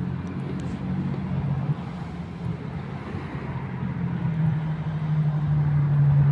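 A low, steady motor hum that grows louder about four seconds in.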